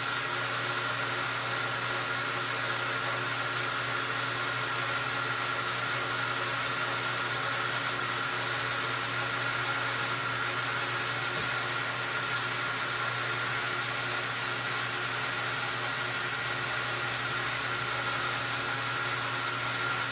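Metal lathe running steadily with its spindle turning, a constant whine over an even mechanical hum.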